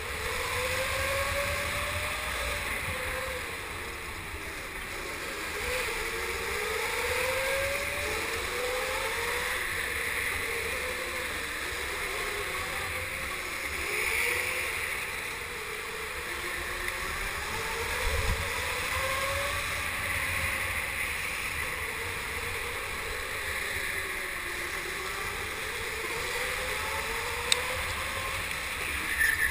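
Go-kart motor whining, its pitch rising and falling over and over as the kart speeds up on the straights and slows for the corners, over a low wind rumble on the on-board microphone. A single sharp click near the end.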